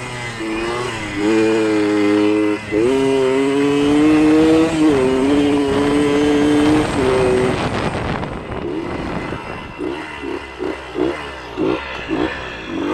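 Kawasaki KDX 80's two-stroke single-cylinder engine riding a dirt trail, its pitch climbing under throttle and dropping sharply twice, about three and five seconds in, as it shifts up. After about eight seconds the throttle comes off and it runs lower and unevenly, pulsing about twice a second.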